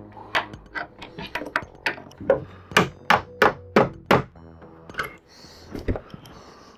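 Claw hammer tapping repeatedly on the bolted joint of a wooden bunk bed frame: a run of sharp strikes, the hardest in the middle, stopping about four seconds in, then a couple of lighter knocks near the end.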